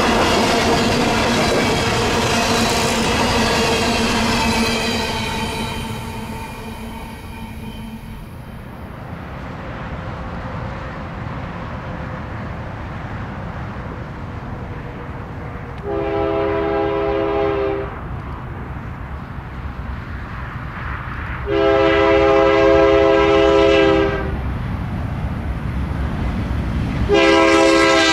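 Diesel freight locomotive's air horn blowing a grade-crossing signal: two long blasts, then a short one beginning near the end, over the steady rumble of a train. A loud, steady pitched tone fades out over the first several seconds.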